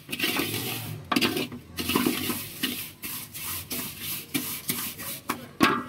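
Wooden spatula stirring and scraping fried vermicelli around a metal pot in ghee, in irregular strokes, with a few sharper scrapes about a second in and near the end.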